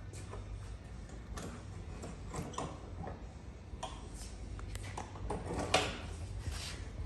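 Innovatech 18-inch concrete grinder polisher with a 3 HP WEG motor, grinding concrete: a steady low motor hum under irregular scrapes and ticks from the grinding stones on the floor, the loudest scrape about six seconds in.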